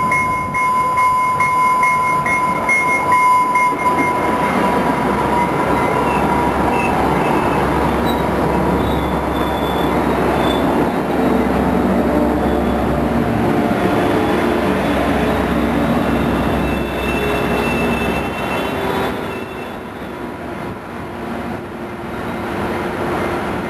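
An EMD F59-series diesel passenger locomotive runs past at close range, its engine rumble under heavy wheel-and-rail noise. A single high wheel-squeal tone sounds at first and dies away about four seconds in. The train noise eases briefly near the end, then picks up again.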